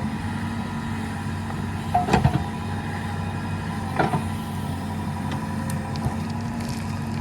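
Diesel engine of a JCB 3DX backhoe loader running steadily, with two short metallic clanks about two and four seconds in.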